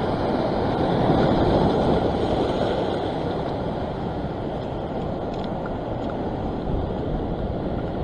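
Steady rushing of wind and sea surf on the microphone, heavy in the low end, swelling slightly in the first two seconds and easing a little after.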